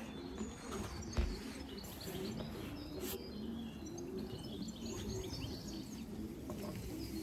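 Small songbirds chirping and twittering with short, quick high notes, over a low, repeated rise-and-fall cooing of pigeons. A single brief knock about a second in.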